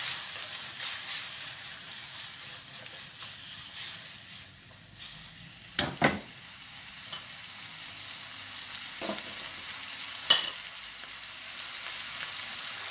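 Chicken and vegetable stir-fry sizzling in a nonstick frying pan over a gas flame: a steady frying hiss, louder at first while the pan is tossed. Three sharp knocks come about halfway and later.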